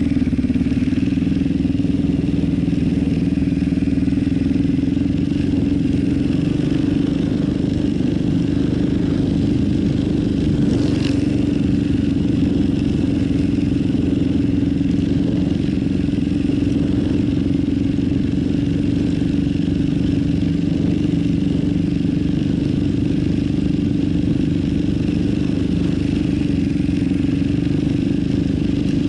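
Yamaha Warrior 350 quad's single-cylinder four-stroke engine running at a steady, even speed while the quad is ridden along a dirt track.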